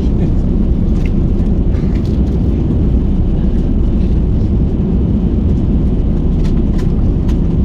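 Steady, loud rumble of an airliner's cabin noise from its engines and airflow, with a few faint clicks.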